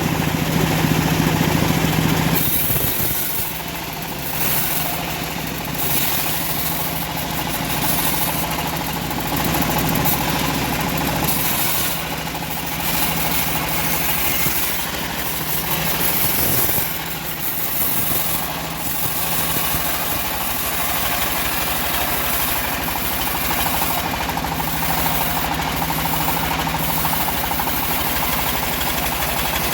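Engine of a homemade bandsaw sawmill running steadily, with slight dips in loudness every few seconds.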